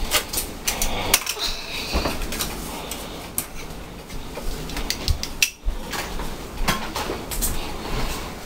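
Spoons and plastic bowls being handled on a kitchen counter: irregular clinks, taps and knocks of utensils against dishes.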